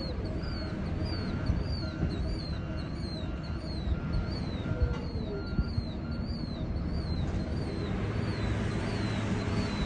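Steady low rumble of an EMD GP38-2 diesel locomotive working a freight train. A grade-crossing bell dings about twice a second and stops about two-thirds of the way through. A bird chirps over and over.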